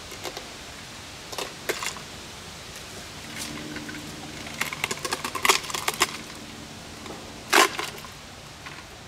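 Plastic cabinet of a small RCA satellite speaker cracking and snapping as it is pried apart by hand. A few scattered cracks come first, then a quick run of snaps a little past the middle, and one loud snap near the end.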